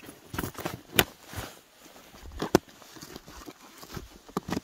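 Chain crampons (microspikes) being stretched over a hiking boot in snow: the metal chains and spikes clink and knock, with rubbing and crunching between. Two sharp knocks stand out, about a second in and about two and a half seconds in.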